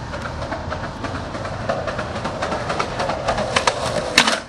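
Skateboard wheels rolling on a concrete sidewalk with a steady rumble, clacking over the joints. A loud, sharp clack of the board comes near the end as the skater does a trick.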